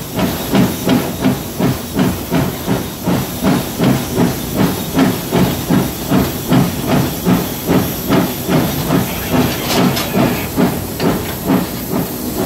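Steam locomotive 2685 working hard, heard from the cab at the firebox: a steady rhythm of exhaust beats, about three a second, with steam hiss.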